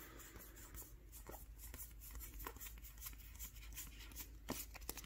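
Faint handling noise of Magic: The Gathering cards and pack wrappers: a scatter of soft clicks and rustles, with a slightly sharper click about four and a half seconds in.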